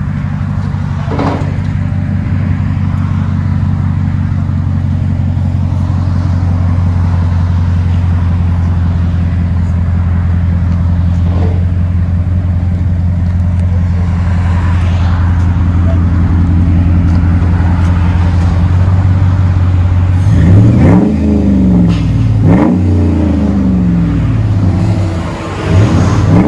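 Exhaust of a 2011 Ram 1500's 5.7-litre Hemi V8 through a Flowmaster 40 Series muffler with the factory resonators kept, idling steadily. Near the end the engine is revved in three quick blips, each rising and falling.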